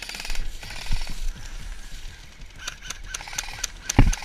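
Airsoft rifle firing short rapid bursts, a buzzing rattle of shots, with a sharp heavy knock about four seconds in.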